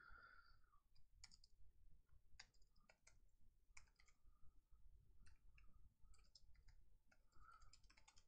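Faint computer keyboard typing: scattered, irregular key clicks, bunched more closely near the end.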